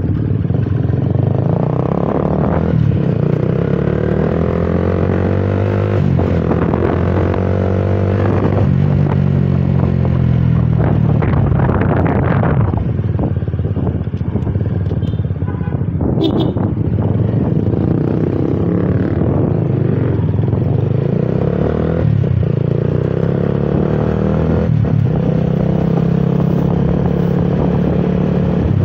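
Honda CBR150R's single-cylinder engine running while riding through traffic, its pitch rising and falling as the bike speeds up and slows.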